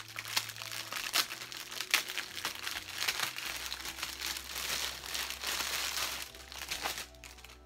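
Clear plastic bag crinkling and crackling as it is pulled open and handled, with many sharp crackles, the loudest about two seconds in. It dies down near the end.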